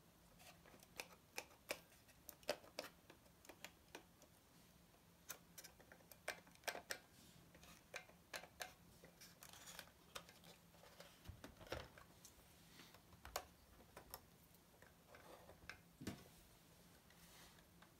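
Faint, irregular clicks and light taps from hands handling a 1:18 diecast Porsche 911 model car: fingers on its plastic underbody and wheels, and its opening front lid being worked.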